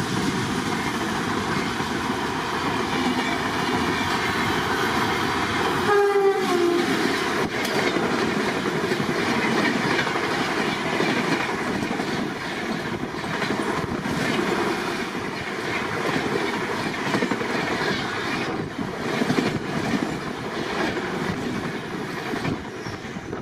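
Passing train running through at speed, its wheels clattering steadily over the rail joints. About six seconds in, a short horn blast dips in pitch as it goes by.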